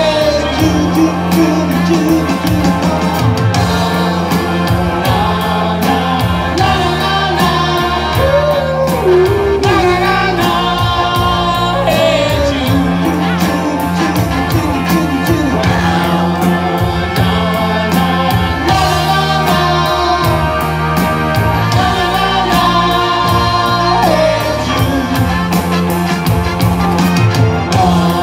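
Live band playing a rock song: electric guitars and bass over a steady beat, with a singer at the microphone.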